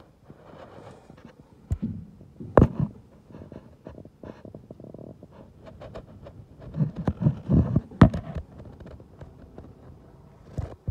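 Handling noise of a camera moved around inside the aluminium shell of a Cessna 150 horizontal stabilizer: low rubbing and scraping against the sheet metal, with sharp knocks about two, two and a half and eight seconds in.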